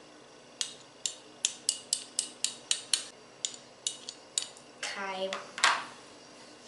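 Two metal spoons clinking against each other again and again, about three sharp clinks a second for some four seconds, as glue is knocked off one spoon into the tub.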